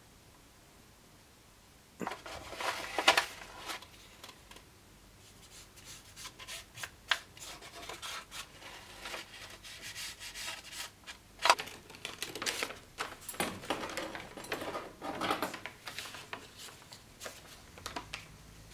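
Sheet of paper rustling and crinkling as it is handled, rubbed and pressed down by hand, starting about two seconds in, with a few sharp clicks and taps.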